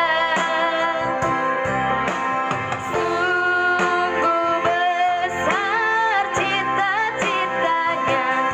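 A young woman singing a slow melody with vibrato over instrumental backing.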